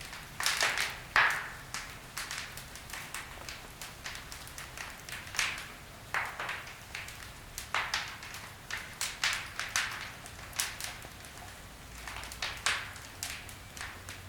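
Wood fire crackling in a fireplace: irregular sharp pops and snaps from burning logs, with the loudest pops about a second in.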